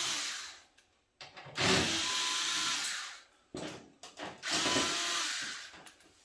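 Cordless electric screwdriver running in three short bursts as it backs screws out of a copier's sheet-metal rear panel, with a few light clicks between the second and third bursts.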